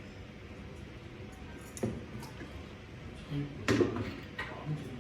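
A few scattered sharp clicks and knocks over a low steady hiss, the loudest about two seconds in and another cluster near four seconds.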